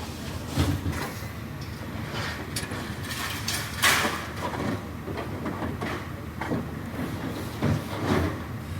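Scrap metal crashing onto a recycling pile: irregular metallic clanks and bangs over a steady rumble, the loudest crash about four seconds in.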